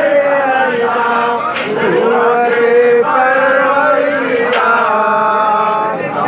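Men's voices chanting together in long, drawn-out notes that slide from pitch to pitch.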